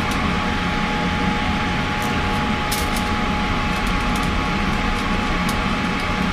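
Steady whoosh of a laminar flow hood's blower running, with a faint steady hum tone. A few faint light ticks come from work on the jar lids.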